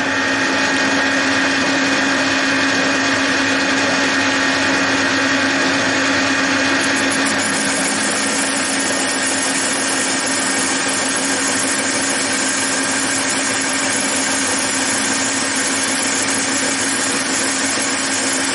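Metal lathe with a large chuck running steadily, turning a disc held with tail support on a light cut. A steady high ring and a lower hum sit over the gear and cutting noise, which is typical of a setup that the machinist says tends to chatter with this big chuck.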